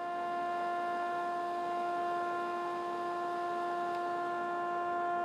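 Belt grinder running: a steady hum with a clear pitch and overtones that holds constant throughout.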